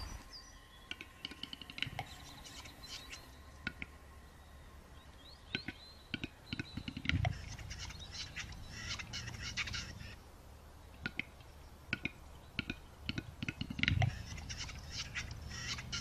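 Male capercaillie displaying: runs of dry clicks and dense rasping clusters, with deep popping notes about seven seconds in and again near the end.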